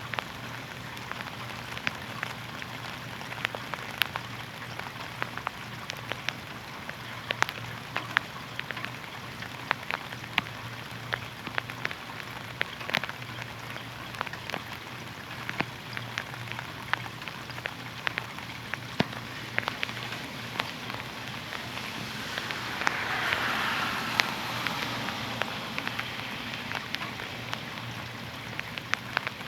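Rain falling steadily, a constant hiss dotted with sharp individual drop ticks, over a faint low hum. The rain swells briefly louder about three-quarters of the way through.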